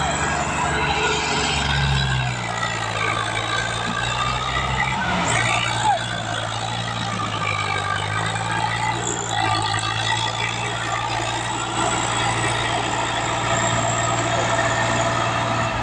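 Swaraj 744 tractor's diesel engine running steadily under load while hauling a sand-laden trolley. Its note shifts in pitch about two seconds in and again around five seconds.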